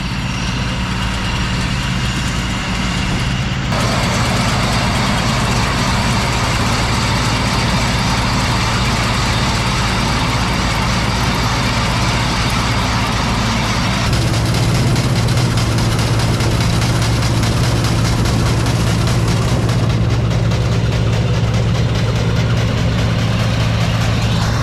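John Deere 4400 combine's diesel engine running steadily as the combine harvests, with a wide whir of its threshing machinery over the engine's low drone. The mix changes abruptly about four and fourteen seconds in.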